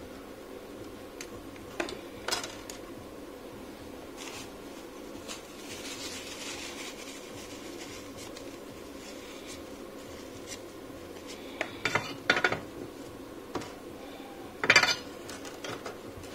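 Small metallic clicks and taps of a soldering iron tip and hand tools against the LED ring strip and its wires, in a few scattered groups, with the loudest sharp clack near the end. A soft scrubbing runs from about five to eight seconds in, as the iron tip is wiped on a tissue.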